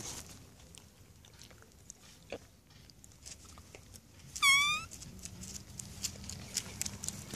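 Beagle puppy nosing and mouthing in gravel, with small scattered clicks of stones, and one short high-pitched yelp about four and a half seconds in.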